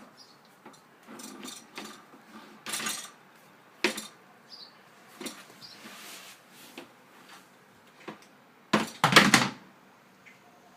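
Dishes and cutlery being handled at a dishwasher: scattered clinks and knocks, with a louder clatter about nine seconds in.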